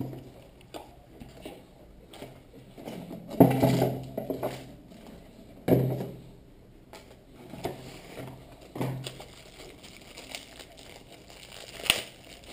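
Cardboard and plastic packaging being handled and set down on a wooden table: rustling broken by several knocks, the loudest about three and a half seconds in.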